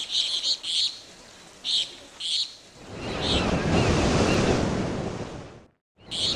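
Small birds chirping in short repeated phrases, then a broad rushing swell of noise that builds for about a second, holds and fades away. It cuts to a brief silence near the end, and then the chirping starts again.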